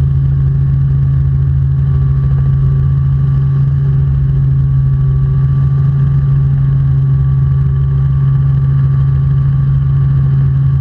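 Robinson R44 Clipper II helicopter in flight, heard from inside the cabin: a steady, loud drone of engine and rotor with a fainter steady whine above it.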